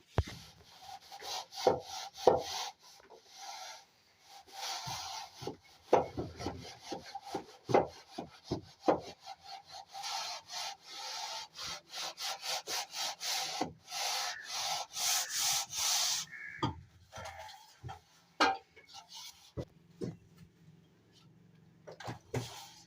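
Plastering trowel or float scraping and rubbing across plaster in repeated strokes, with a faster run of short, quick strokes partway through.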